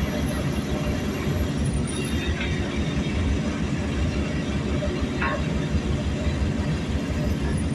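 Heavy diesel earthmoving machinery, bulldozers and excavators, running with a steady low rumble.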